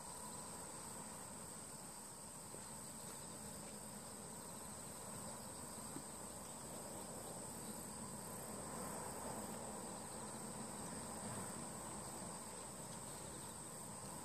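Steady high-pitched chirring of insects in the surrounding vegetation, unbroken throughout.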